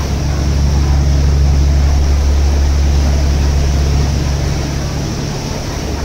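Boat engine running with a steady low drone, over the rushing hiss of water churning in the wake.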